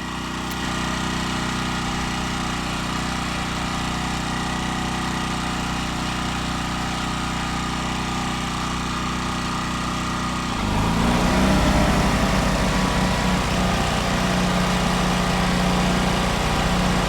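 Small Champion portable generator engine running steadily; about ten seconds in an electric air compressor is switched on and loads it, the engine note wavers and dips briefly, then settles and the whole sound grows louder as the compressor motor runs on the generator.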